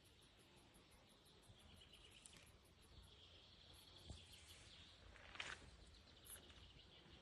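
Faint outdoor ambience: an insect chirping in a steady high pulse, about five a second, with one short louder sound about five and a half seconds in.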